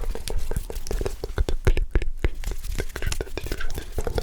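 Close-miked ASMR hand sounds: a rapid, irregular run of small crisp clicks and rubs from hands and fingers, with faint unintelligible whispering between them.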